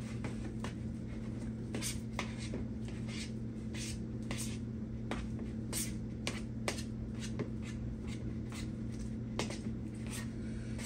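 A spoon stirring a thick cream cheese filling in a metal mixing bowl, scraping and clicking against the bowl at an uneven pace, over a steady low hum.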